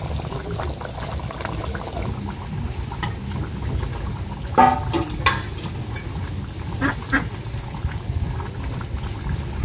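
Hilsa fish curry bubbling in a pan over a wood-fired clay stove. A few short pitched calls come about halfway through and again a little later.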